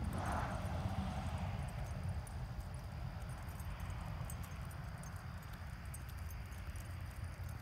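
Steady wind rumble on the microphone, with faint scattered clicks and light jingling of dog collars as two leashed dogs walk at heel.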